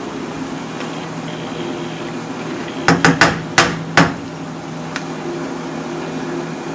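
A metal spoon knocking and clinking sharply about five times in quick succession, about three seconds in, while thick gochujang chili paste is scooped up and dropped into the pan, with one lighter click a second later. A steady low hum runs underneath.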